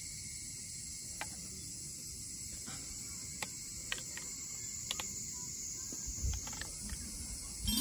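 Metal chopsticks clicking against a rice bowl as they break and spread an egg yolk: a handful of light, sharp taps, then a couple of soft low knocks as the bowl is picked up off a wooden board. A steady high insect chirring carries on underneath.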